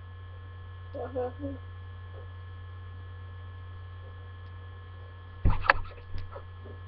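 Steady low electrical mains hum in the recording, with a short bit of voice about a second in and a brief cluster of knocks and handling noise about five and a half seconds in.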